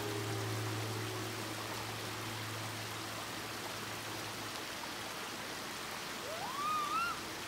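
Shallow rocky brook running over stones in small riffles, a steady rush of water. The tail of background music fades out in the first couple of seconds, and a short rising, wavering call sounds near the end.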